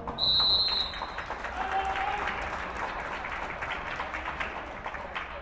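A referee's whistle blows once, high and steady for about a second. Then spectators in a school gym applaud.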